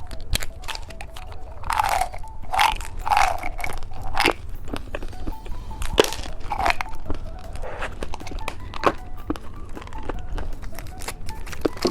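Crackling and clicking of plastic candy packaging being handled, in irregular short bursts.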